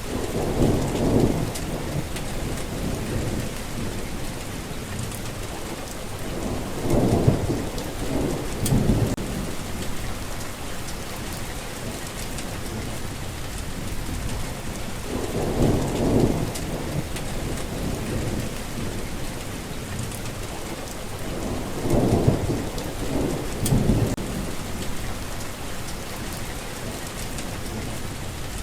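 Steady rain falling, with low thunder rumbling up and fading away about four times.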